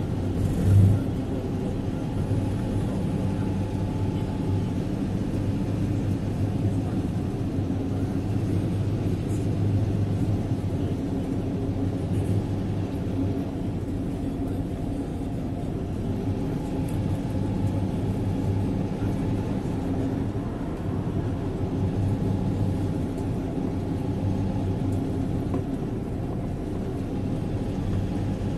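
Steady low rumble of a motor vehicle running on the road, an even engine hum with a brief bump about a second in.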